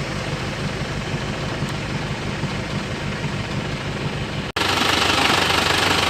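Isuzu Panther's diesel engine running at a steady idle after an engine overhaul. It cuts out briefly about four and a half seconds in and comes back louder and harsher.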